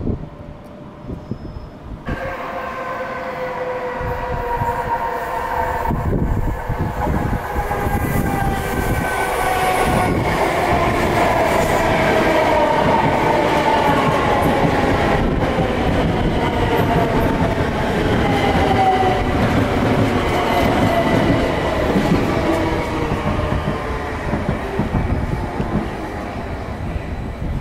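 Bombardier Electrostar electric multiple unit's traction motors whining, several tones together sliding slowly down in pitch over about twenty seconds as the train slows, over the rumble of its wheels on the track.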